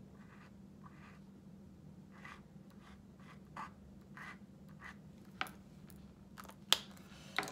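Felt-tip marker tip scratching across paper in short colouring strokes, followed near the end by a few sharp clicks, the loudest well after the strokes. A steady low hum runs underneath.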